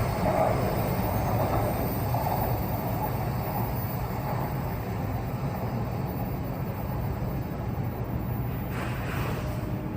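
Running noise inside an E6 series Shinkansen passenger car: a steady rumble and rushing hiss that slowly gets quieter as the train slows.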